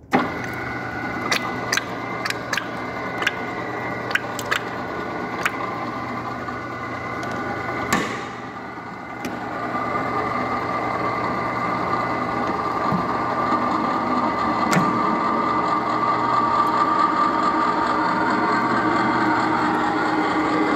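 RIDGID 535 threading machine switched on and running, with about eight sharp clicks in the first few seconds and a knock about 8 s in. From about 10 s in, the running sound steadies and grows a little louder as the die head cuts a thread on a 3/4-inch solid steel bar.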